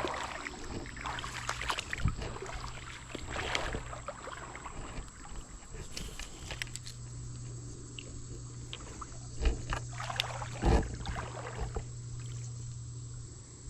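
Creek water sloshing and splashing, with scattered sharp knocks and a couple of louder thumps near the end, over a faint steady low hum.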